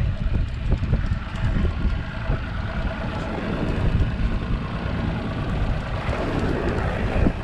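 Wind buffeting the microphone on an open boat at sea: a loud, uneven low rumble with a steady hiss above it.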